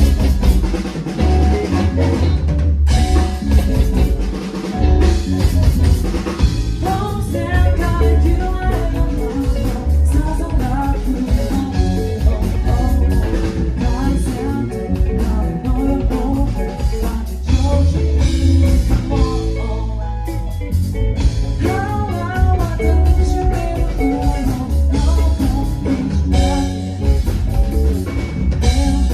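Live band music: a drum kit keeping a steady beat over heavy bass, with melodic lines and a singing voice on top.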